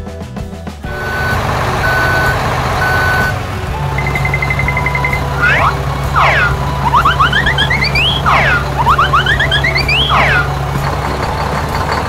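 Cartoon truck sound effects: three reversing beeps, then a steady low dump-truck engine hum. A quick run of ticks follows, then a flurry of rising and falling whistle-like glides.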